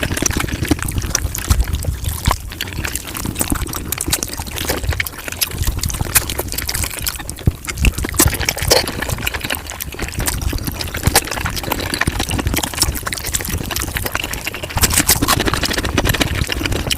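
Close-miked chewing and mouth sounds of a person eating chicken, sped up five times: a dense, continuous run of wet smacks and crackles.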